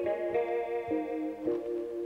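Music played on a cheap plastic electronic keyboard: a steady run of chords and notes that change about every half second.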